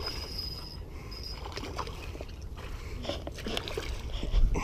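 Hooked Guadalupe bass splashing at the water's surface as it is fought in close to the bank, with scattered splashes and scrapes.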